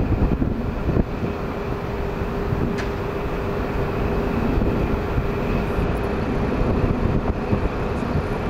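CrossCountry HST Class 43 power car's MTU diesel engine, running as the train approaches slowly: a steady low rumble with a steady whine.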